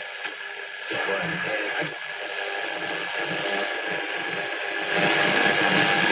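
Shortwave radio broadcast coming from a National Panasonic RX-5035 boombox's speakers, a voice under steady static hiss. About five seconds in the hiss and static grow louder.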